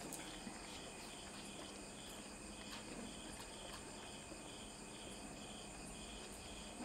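Faint insect chirping, a short high chirp repeating evenly about twice a second.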